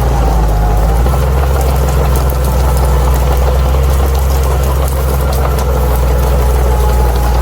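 Crawler bulldozer's diesel engine running steadily, with a thin steady whine above the engine note and faint light ticking throughout.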